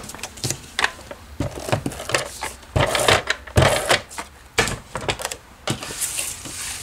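Stiff cardstock panels slid, tapped and flexed on a tabletop, with clicks from a handheld adhesive tape gun. Irregular clicks and taps, with louder rustling bursts about three to four seconds in.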